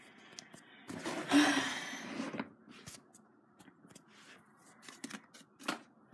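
Rustling and handling noise: a louder rustle from about one to two and a half seconds in, then small scattered clicks and scrapes.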